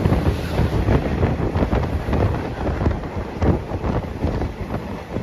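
Moving passenger train: a steady low rumble of the carriage with irregular rattles and knocks, and wind buffeting the microphone.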